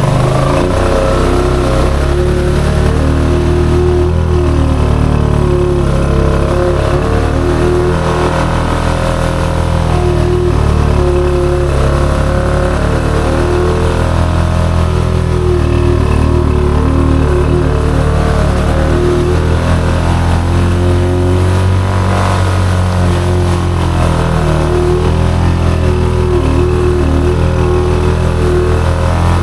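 Honda Foreman ATV's single-cylinder engine running under load while riding a trail, its pitch shifting a little with the throttle.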